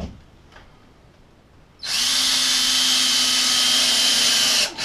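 Cordless drill-driver driving a screw up through a ceiling vent's trim ring into the wood behind the ceiling paneling. It starts about two seconds in, runs at a steady speed for about three seconds, stops, then gives a short blip at the end.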